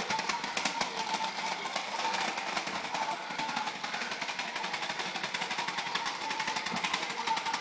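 Small battery-powered flashing toy running on a wooden floor: its motor makes a fast, steady rattling, with a thin wavering electronic tone over it.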